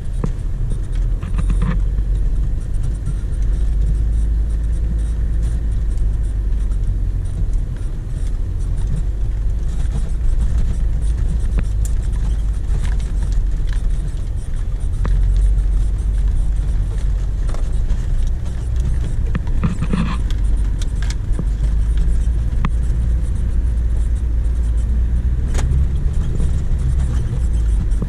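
Four-wheel-drive vehicle driving over a rough dirt track: a steady low engine and road rumble, with scattered clicks and rattles throughout.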